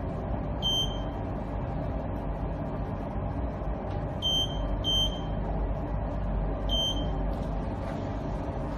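Short electronic beeps from a hydrogen-oxygen bubble facial machine's control panel as its mode is set: one about a second in, two close together around four to five seconds, and one near seven seconds, over a steady low hum.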